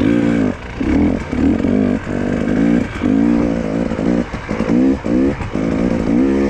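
KTM enduro motorcycle's two-stroke engine revving in short bursts of throttle, about one a second, its pitch climbing and dropping with each blip as the bike picks its way over rough ground.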